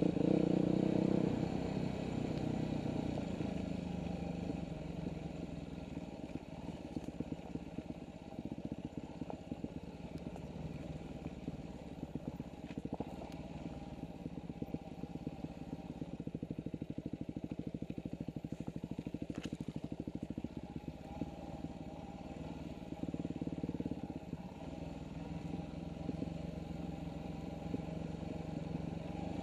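Dirt bike engine running while ridden along a rough trail, loudest at the start and easing off about a second in as the throttle comes off, then picking up again near the end.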